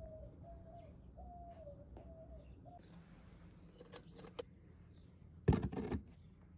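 A bird repeating a short, slightly falling call about twice a second for the first few seconds. Then, about five and a half seconds in, a brief clatter as a clay crucible of crushed aluminum cans is set down into the furnace bore.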